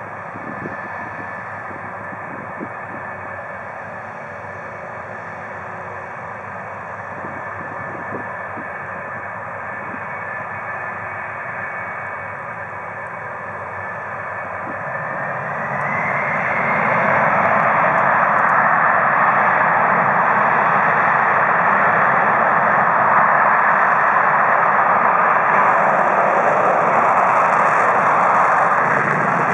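F-4 Phantom II's twin J79 turbojets running on the runway with a steady jet whine. About halfway through, the whine rises in pitch and the sound swells much louder as the engines spool up to takeoff power, then holds loud and steady as the jet begins its takeoff roll.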